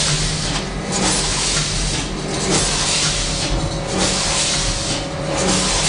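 Automatic DoyPack pouch form-fill-seal packaging machine running: a loud steady hiss over a low hum, the hiss dropping away briefly about every second and a half in a regular machine cycle.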